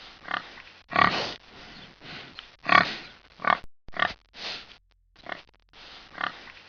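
Domestic pig grunting: about a dozen short, rough grunts in an irregular series, the loudest about one second and about three seconds in.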